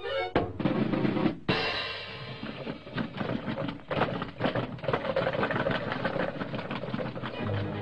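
Cartoon soundtrack music with fast drumming and crashing percussion, including a drum roll. A loud crash comes about half a second in, then busy clattering hits under the orchestra.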